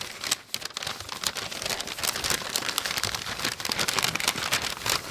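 White packing wrap being pulled open and handled by hand, a continuous crinkling and crackling.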